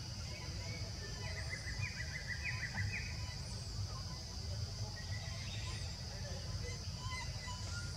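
Forest ambience: a steady, high insect drone, with a bird's high call repeated about every two seconds over a low rumble. About a second in, a rapid run of short chirps lasts under two seconds.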